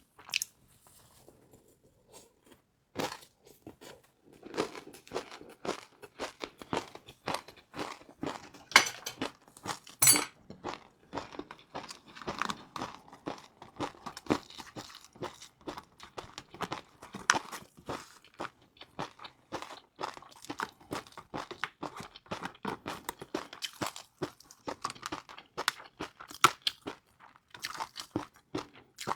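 Close-up eating sounds: crispy fried noodles being bitten and chewed, a rapid, irregular run of crunches. After a short lull near the start, a couple of louder crunches come about a third of the way through.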